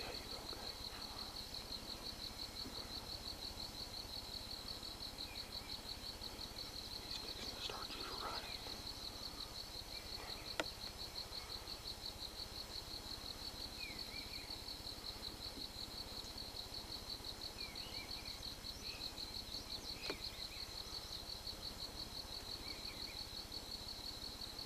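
A steady, high, fast-pulsing insect trill, with faint scattered bird chirps and one sharp click about ten and a half seconds in.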